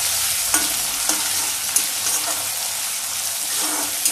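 Curry leaves and spices sizzling in hot oil in a steel kadai, with a steel spatula scraping the pan roughly every half second as the tempering is stirred.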